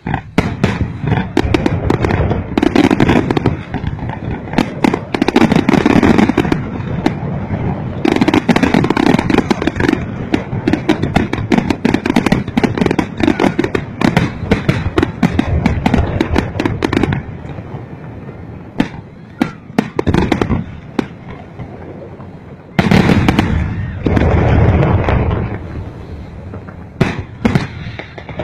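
Fireworks display: a dense, loud barrage of bursting shells and rapid crackling. The barrage eases about two-thirds of the way through, then comes back with another heavy volley and a few sharp bangs near the end.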